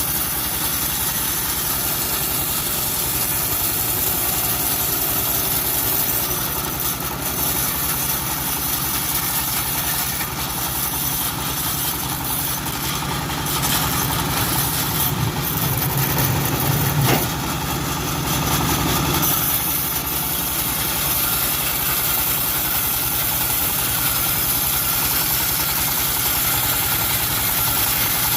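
Engine of a homemade bandsaw mill running steadily. Partway through, the low part of the sound swells for several seconds, with one sharp knock near the end of that stretch.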